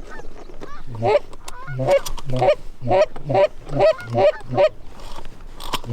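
Canada geese honking, a steady string of short honks a little under two a second.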